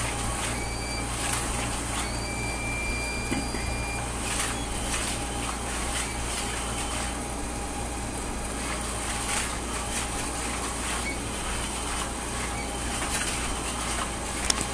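Small battery motor of a Cat's Meow cat toy whirring steadily as it drives its wand around under the fabric disc, with brief rustles now and then.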